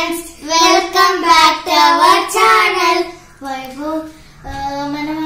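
Children singing a short tune in high, held notes, with a brief pause a little past halfway.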